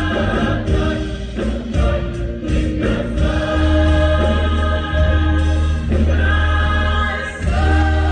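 Choir singing with instrumental accompaniment: held chords that change every second or so over a strong, steady bass.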